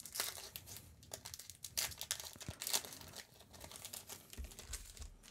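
Foil booster pack wrapper for Magic: The Gathering cards being torn open and crinkled, a run of faint, irregular crackles.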